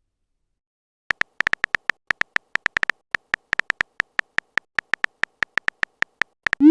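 Texting-app keyboard typing sounds: a run of short, high electronic tap pips at an irregular, quick typing pace, then a short rising swoosh near the end as the message is sent.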